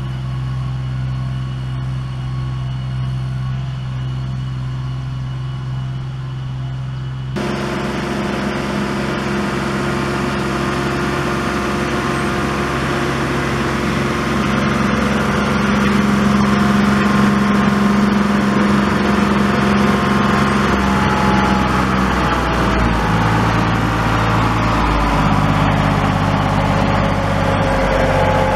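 Old 1981 tractor's engine running steadily, then abruptly louder and fuller about seven seconds in and getting louder still as it comes closer. Its pitch shifts several times in the last third.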